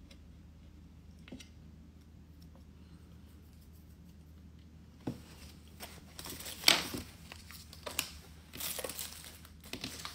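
Wrapping or packaging being crumpled and crinkled by hand in irregular rustling bursts that begin about halfway through, with one sharp crackle soon after. Before that there is only a low, steady room hum.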